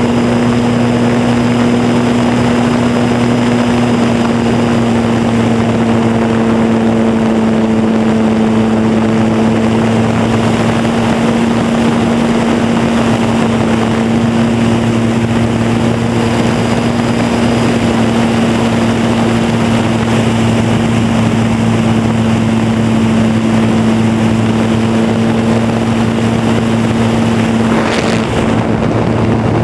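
R/C Super Cub model airplane's motor and propeller running at a steady pitch, heard from a camera on board, with air rushing past. A short rising whine near the end.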